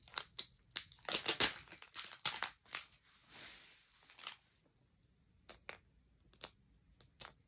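Plastic wrapper being torn and peeled off a 5 Surprise Mini Brands capsule ball. A quick run of sharp crinkling crackles gives way about three seconds in to a longer ripping tear, and a few scattered crinkles follow near the end.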